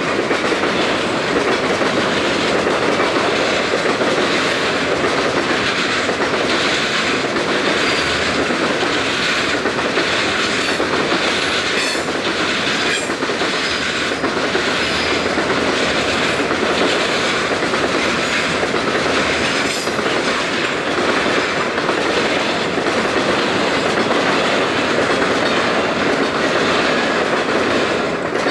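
Freight train of boxcars rolling past close by: a steady loud rumble of steel wheels on rail, with repeated clicks as the wheels cross the rail joints.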